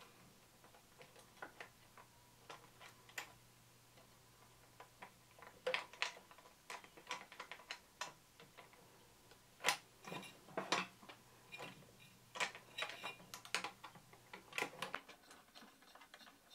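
Scattered small clicks and taps of fingers handling a small screw and the cover plate of a food mixer, the screw being backed out and started again after it felt cross-threaded. The clicks come in bunches, over a faint steady hum that stops near the end.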